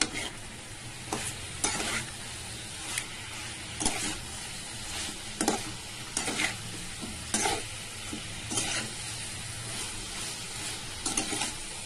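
A spatula stirring and scraping through a thick masala curry of drumsticks and raw mango frying in a metal pan, with irregular scrapes about once a second over a steady sizzle.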